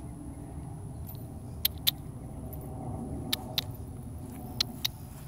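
Three pairs of sharp clicks, each pair about a quarter second apart and the pairs about one and a half seconds apart, over a steady low rumble.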